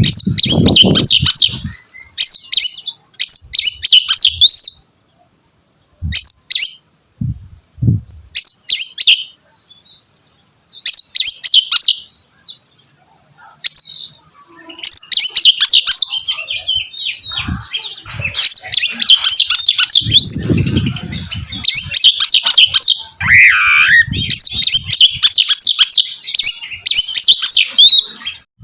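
Oriental magpie-robin (kacer) singing loud, rapid phrases of chirps and trills, varied and full of mimicked notes, broken by short pauses. A few low thuds come in between, the most noticeable about two-thirds of the way through.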